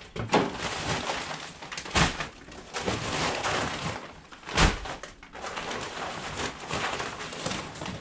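Plastic sacks of salt and sand rustling and crinkling as they are dragged and shifted, with three heavy thuds as sacks are dropped.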